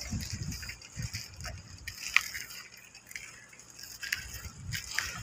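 Wind gusting over the microphone as an uneven low rumble, with scattered light clicks and rattles and one sharper click about two seconds in.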